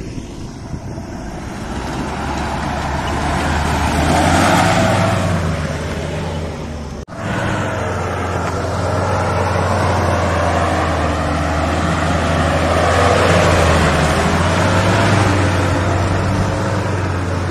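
Off-road 4x4 SUV's engine running hard through mud, a steady drone with the revs swelling and easing. The sound cuts off abruptly about seven seconds in and picks up again straight after.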